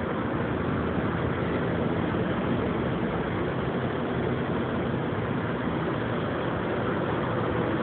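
Steady low rumble of a heavy truck engine idling.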